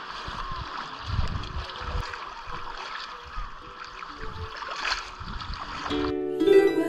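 Running stream water hissing steadily, with irregular low thumps. About six seconds in it cuts to plucked-string background music.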